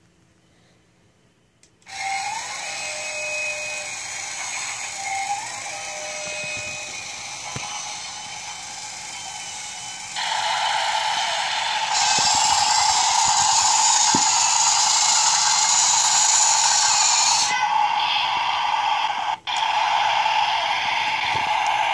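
Electronic engine and machinery sound effects from a battery-powered Caterpillar toy bulldozer, played through its small tinny speaker. The sound starts about two seconds in, gets much louder around the middle, and cuts out briefly near the end.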